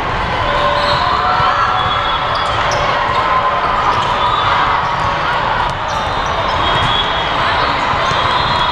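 Steady din of a large hall full of volleyball matches: volleyballs being struck and bouncing on the courts, with short squeaks and a murmur of many voices underneath.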